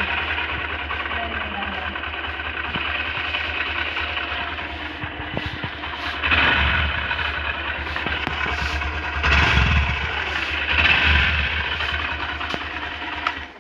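BS6 motorcycle engine with a catalytic converter, running steadily and revved up briefly three times in the second half.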